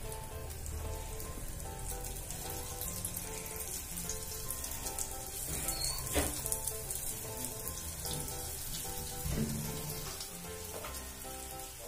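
Oil sizzling in a nonstick frying pan as pieces of steamed chana dal cake are laid in one by one to shallow-fry, with background music underneath.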